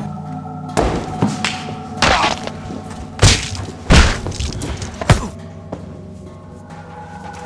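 Staged fight hits: a run of heavy thuds and whacks, about seven in five seconds, the loudest about three and four seconds in, over steady background music.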